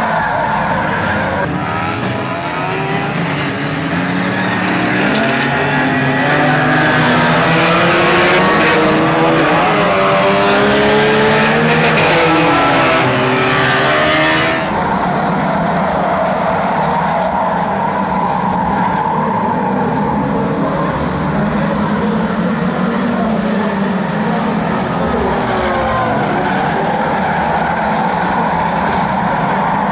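A pack of banger racing cars' engines revving hard together, many overlapping pitches rising and falling. About halfway through the sound cuts abruptly to another mix of engines racing past.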